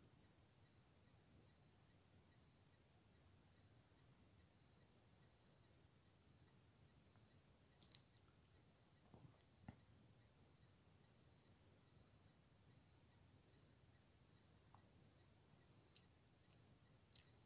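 Near silence: a faint, steady high-pitched tone, with a few faint clicks.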